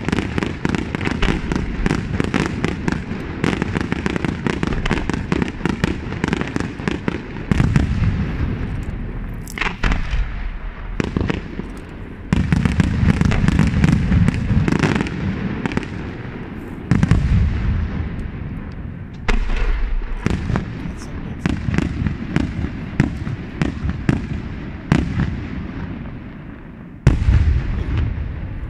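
Aerial fireworks display: a rapid, continuous barrage of shell bursts and crackling, with heavier deep booms every few seconds.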